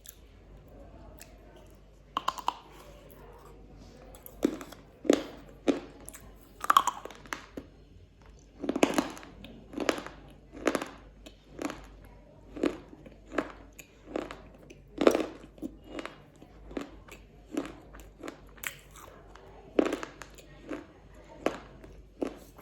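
A black KitKat wafer bar being bitten and chewed. A couple of sharp snaps come about two seconds in, then steady crunching, roughly one to two crunches a second.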